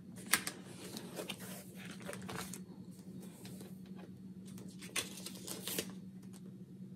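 Paper rustling and crinkling in the first couple of seconds, with a few sharp light clicks, as sheets and an insert are handled and fitted into a disc-bound planner.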